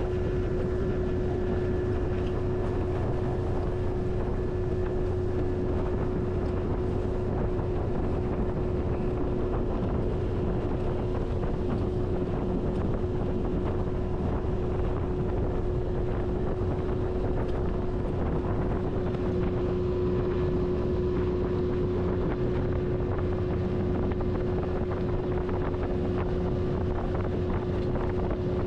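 A boat's outboard motor running at a steady speed, one unchanging hum over a low rumble, with wind buffeting the microphone.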